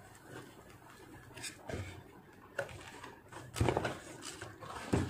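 Cardboard box handling: an inner carton slid out of its printed paper sleeve and its flaps pulled open. A few scattered rustles and scrapes, the loudest about three and a half seconds in.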